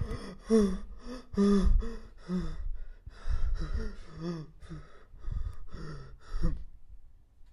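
A man gasping and breathing hard in a run of short, voiced breaths, about a dozen of them, which stop about six and a half seconds in.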